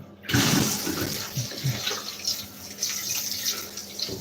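Tap water suddenly starts running about a third of a second in and splashes steadily into a bath while a Dyson vacuum part is rinsed under it.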